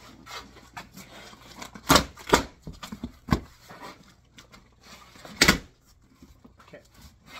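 Cardboard shipping box opened by hand: packing tape torn off and the flaps pulled open. There are a few sharp cardboard rips and thumps, the loudest about two seconds in and again about five and a half seconds in.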